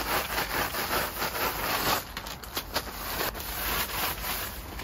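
A cloth rubbed across a tent's floor sheet in repeated wiping strokes, with a few short knocks in the second half.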